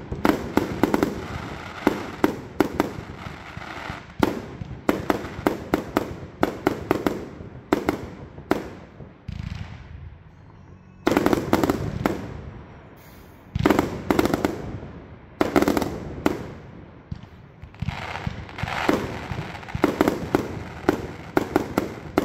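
Jorge CB17 "Dragon" firework compound cake firing: rapid runs of launch shots and crackling aerial bursts in volleys. It goes quieter for a moment about ten seconds in, then fires several heavier single bursts before more quick volleys.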